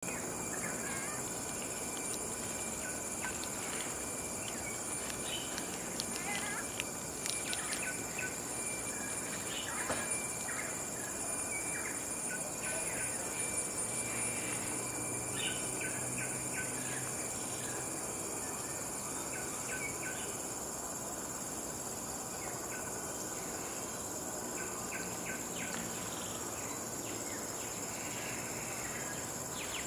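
Forest ambience: a steady high-pitched insect drone with scattered short bird chirps and calls throughout.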